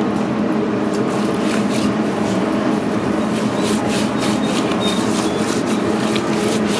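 Hands rubbing seasoning into the raw inside of a split whole pig, a wet rubbing with scattered small slaps and crackles, over a steady machine hum.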